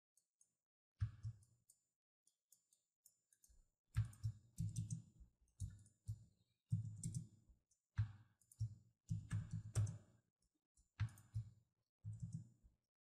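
Faint, irregular clicks of a computer mouse and keyboard, coming in short clusters.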